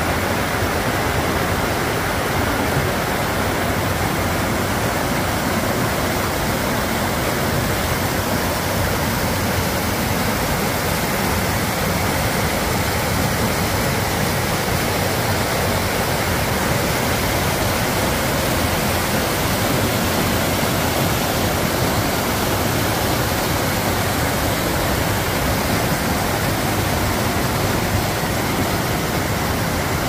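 A rocky brook cascading over boulders and small falls: a steady roar of rushing, splashing water.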